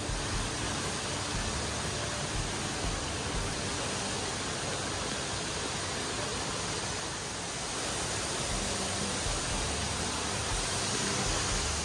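Steady, even rushing noise of falling water, with a slight dip about seven seconds in and a slight swell near the end.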